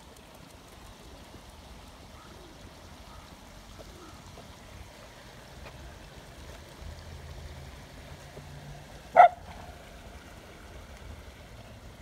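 Bubbling stream running steadily, with one short, loud call about nine seconds in.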